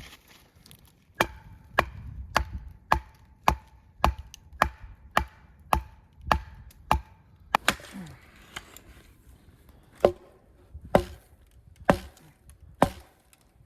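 Hatchet chopping wood. A steady run of about a dozen sharp strikes, roughly two a second, then after a short pause slower strikes about a second apart.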